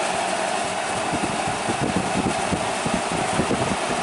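Arctic King WWK05CM71N window air conditioner running on high cool: a steady rush of fan air with an uneven low rumble under it.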